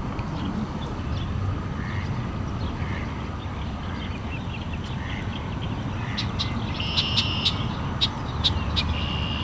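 Mallard ducks quacking now and then over a steady low background rumble, with a few sharp clicks and short high chirps in the last three seconds.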